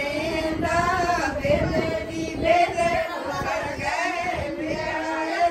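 A group of women and a young girl singing together in unison, with long held, wavering notes.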